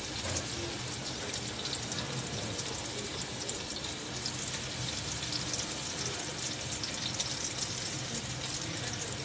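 Sliced onions sizzling steadily in hot oil over a high flame, the early stage of frying them for pulao.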